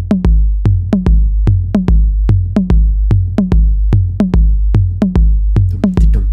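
Heart sound recording of a third heart sound (S3 gallop): each beat is the first and second heart sounds followed straight after by a dull, low third sound. It beats steadily a little under once a second. The extra sound is physiological in children and adolescents; in adults it points to heart disease.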